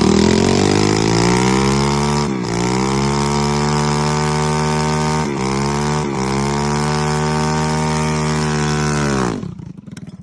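110cc motorized bicycle engine running hard, its pitch climbing at first, then dipping briefly three times, about two, five and six seconds in. About nine seconds in, the engine winds down and stops.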